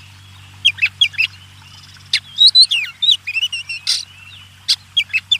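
Wild songbirds chirping in short bursts of quick, sweeping notes, with a harsher rasping call about four seconds in.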